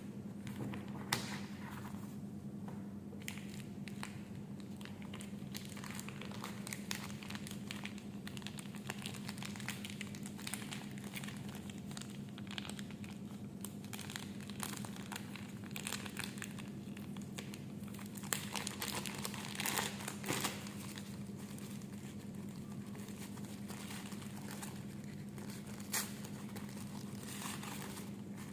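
Packaging crinkling and rustling as it is handled and opened, with scattered short clicks and taps, a louder flurry around two-thirds of the way through, over a steady low hum.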